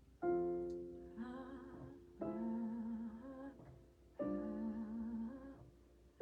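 Slow worship music: a piano or keyboard strikes three sustained chords about two seconds apart, and a voice sings long held notes with vibrato over them, with no clear words.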